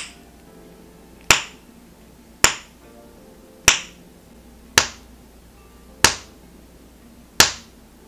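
Snapper fidget toy squeezed in the hand, its two knobs meeting in the middle with a sharp snap each time: six snaps, about one every 1.2 seconds, with faint background music underneath.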